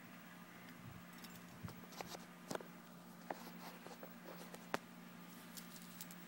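Faint scattered clicks and taps of a hand handling a tin toy space gun and the small red disc at its muzzle, the sharpest click about three-quarters of the way through, over a low steady hum.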